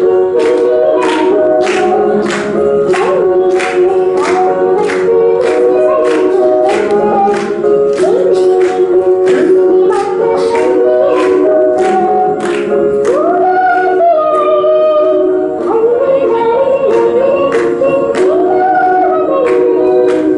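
A song: several voices singing together over held instrumental chords, with a steady percussive tick about twice a second.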